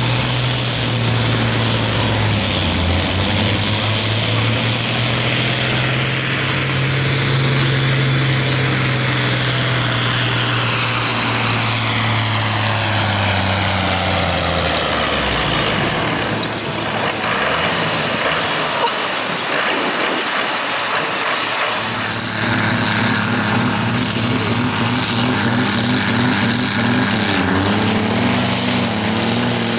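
Turbocharged diesel tractor engines running flat out in a tractor pull. First a red International Harvester tractor pulls the weight sled under full load; about halfway through its engine note sags and drops away, with a falling whine. After a short lull, a John Deere tractor's engine comes in with a higher, steady note as it starts its pull.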